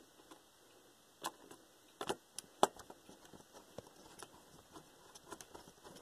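Small screwdriver turning a screw into a laptop's keyboard panel: faint, irregular clicks of the metal tip against the screw head, with a few sharper ones about two seconds in.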